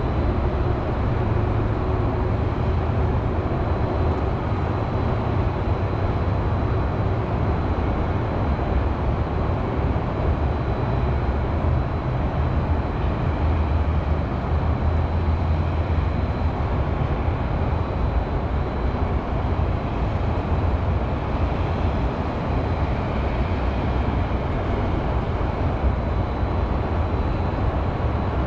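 Steady hum of city highway traffic: a continuous low rumble with no single vehicle or event standing out.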